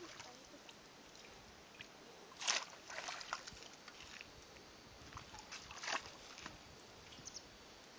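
A few short splashes and sloshes of water in a shallow muddy puddle: one about two and a half seconds in, a quick cluster right after, and another near six seconds, over faint outdoor hiss.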